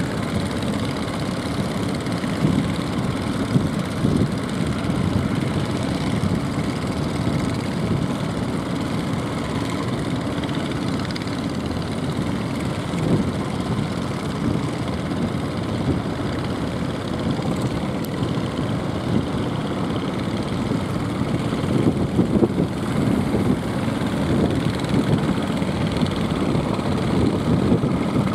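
Jukung outrigger boat engines running steadily, mixed with the rush of choppy, breaking water.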